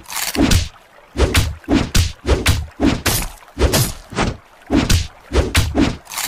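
Cartoon fight sound effects: a rapid string of punching whacks and thuds, about three a second and often in pairs, each a sharp slap over a low thump.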